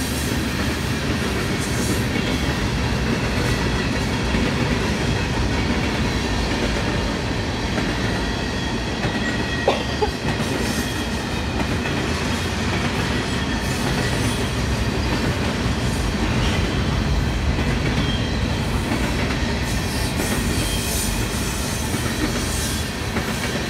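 Freight cars of a passing Norfolk Southern train, covered hoppers and tank cars, rolling past at steady speed with a continuous rumble and wheel clatter on the rails. There is one sharp knock about ten seconds in.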